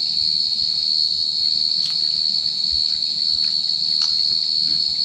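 Steady, high-pitched trilling of insects that runs without a break, with a couple of faint clicks in the middle.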